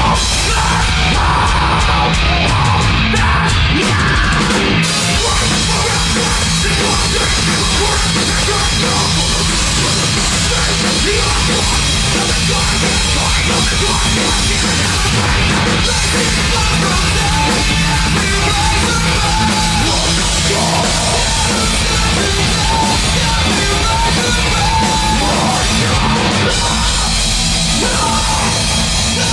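Metalcore band playing live at full volume: drum kit, heavy guitars and bass, with shouted vocals.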